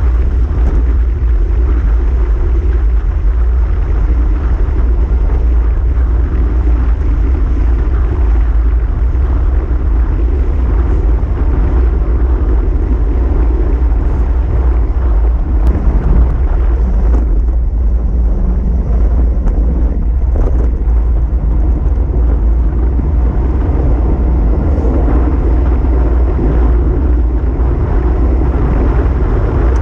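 Wind rushing over a handlebar-mounted camera's microphone on a road bike moving at speed, a steady deep rumble with road noise underneath, and a short louder jolt about sixteen seconds in.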